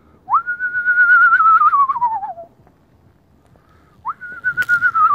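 Whistled imitation of an eastern screech owl's whinny, given twice. Each whistle swoops up, holds a slightly wavering note, then slides down over about two seconds. There is a sharp click during the second whistle.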